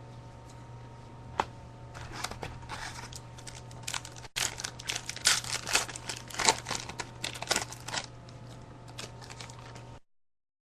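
Trading cards and their foil pack wrapper being handled, with rustling and crinkling in quick clusters between about two and eight seconds. The sound cuts off abruptly near the end.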